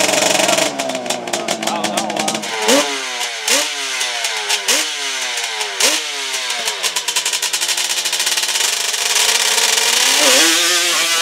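Drag-racing quad's engine crackling for the first couple of seconds, then revved in about four quick rising blips, then held at high revs with a last rise near the end, spinning the rear tyre in a smoky burnout.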